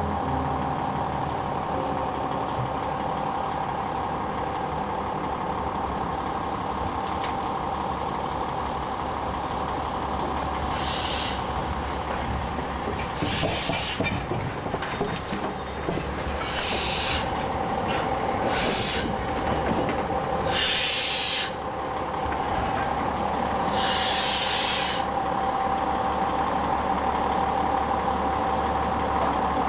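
Heavy machinery running with a steady drone, broken by about six short bursts of hissing air or steam in the middle of the stretch.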